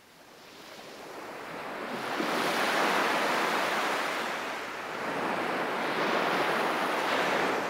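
Ocean surf washing up on a beach. The sound fades in from quiet, then swells twice as the waves break and run up the shore.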